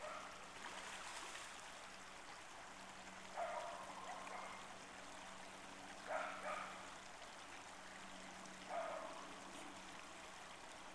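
Creek water running quietly and steadily. A short call stands out three times over it, about every two and a half seconds.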